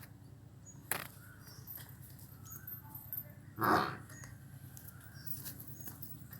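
Farmyard background with a steady low hum, a sharp click about a second in, and faint high chirps. A little past halfway comes one short, rough animal call, the loudest sound here.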